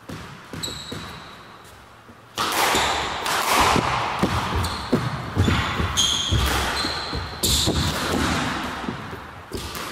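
Squash rally: the ball struck by rackets and smacking off the court walls in a run of sharp hits, with shoes squeaking on the wooden floor. It gets much busier and louder about two seconds in.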